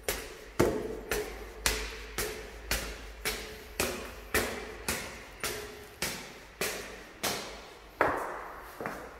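Hard-soled footsteps climbing tiled stairs: a steady run of sharp steps, about two a second, each ringing briefly.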